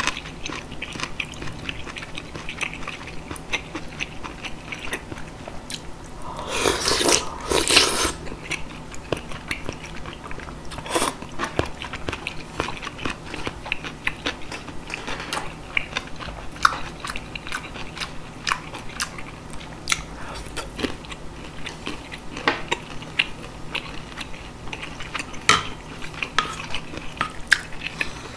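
Close-miked chewing of a mouthful of yukgaejang (spicy beef soup) with rice: soft wet smacks and small mouth clicks, with two louder, longer noises about seven seconds in.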